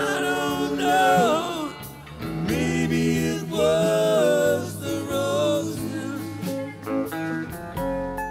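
Live band music, a slow country-rock ballad: a lead guitar line with bending, wavering notes over strummed guitar and bass.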